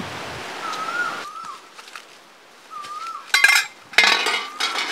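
A large steel kadai (wok) and its ladle clanking, with two loud metallic clashes that ring on, one about three and a half seconds in and one just after four seconds. A bird repeats a short whistled call about every second and a half.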